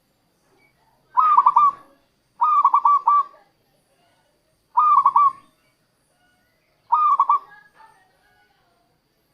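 Zebra dove (perkutut) singing: four short cooing phrases, each under a second and made of quick rolling notes, separated by pauses of one to two seconds.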